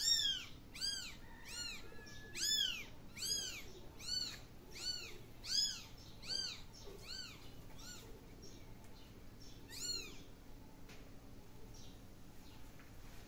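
Kitten meowing over and over in short, high-pitched calls, each rising and falling in pitch, about one a second for the first seven seconds, then once more near ten seconds in.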